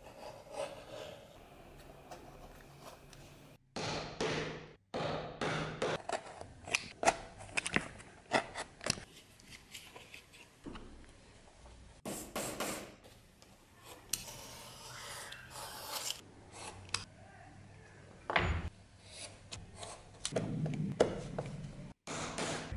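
Leatherworking tools on leather over a plastic board: a blade cutting and a scribe marking thick leather, heard as scraping and rubbing with many small clicks, broken into short pieces by edits.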